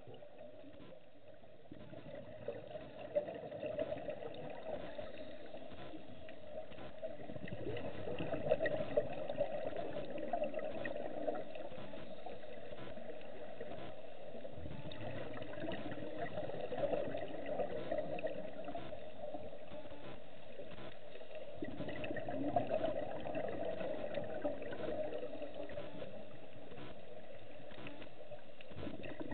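Muffled underwater sound picked up by a camera submerged with scuba divers: the divers' exhaled regulator bubbles gurgling steadily, with a few scattered clicks. It grows a little louder about eight seconds in.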